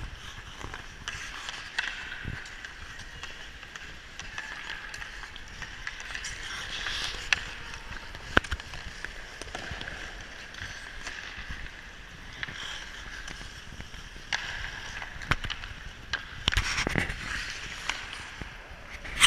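Ice skate blades gliding and scraping on the rink, with several sharp clacks of hockey sticks hitting the puck; the loudest clack comes right at the end.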